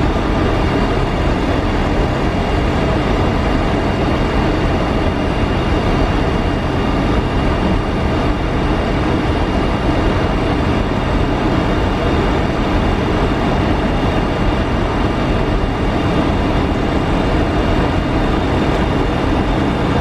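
Steady flight-deck noise of an Airbus A300-600 taxiing slowly on its idling engines: a constant hum and rush with a faint steady high tone over it.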